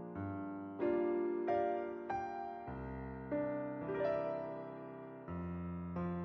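Background music: a piano or electric piano playing slow, gentle chords, each note struck and fading.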